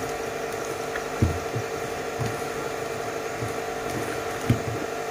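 Silicone spatula mixing chicken strips with cornflour and spices in a glass bowl: soft dull knocks and squishes, the loudest a little over a second in and near the end, over a steady hum.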